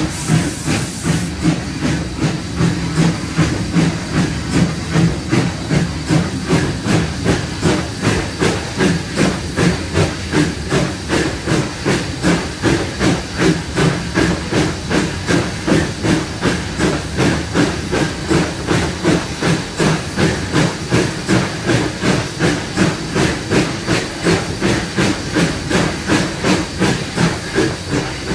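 Steam locomotive working along the track: steady rhythmic exhaust chuffs, about two a second, over a constant steam hiss, with a short sharper hiss in the first second.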